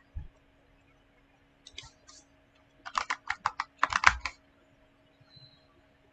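Computer keyboard typing: a few scattered keystrokes, then a quick run of key presses lasting about a second and a half in the middle. A low thump comes near the start.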